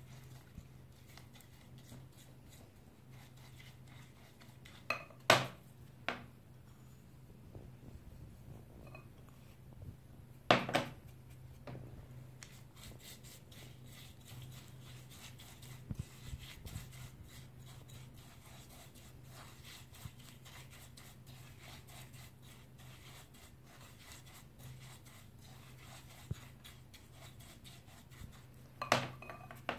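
A spoon stirring thick white glue mixed with iron powder in a glass bowl: faint scraping, with sharp knocks of the spoon against the glass about five seconds in, about ten seconds in, and near the end. A steady low hum runs underneath.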